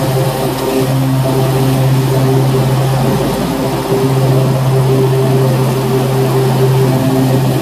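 Exmark 48-inch walk-behind commercial mower's engine running steadily under load while mowing grass.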